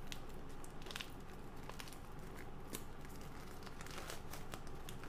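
Plastic courier mailer bag crinkling and rustling as it is handled and pulled open by hand: a steady run of sharp crackles and rustles.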